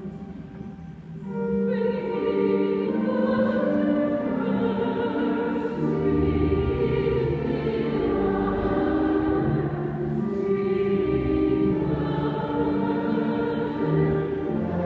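Choir singing a slow hymn, with several sustained notes at once. It grows louder about a second and a half in, and deep low notes join later.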